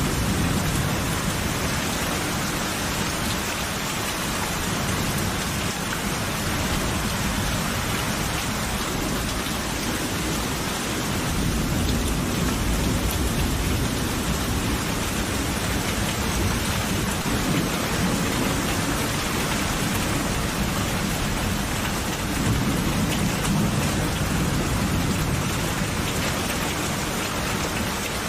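Steady rain falling in a thunderstorm, with low rolling thunder that swells at the start, again around the middle and once more near the end.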